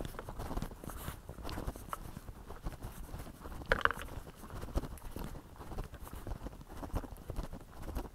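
A hiker's footsteps on a wet, muddy dirt trail: an uneven run of soft thuds and scuffs. About four seconds in there is one brief high-pitched note.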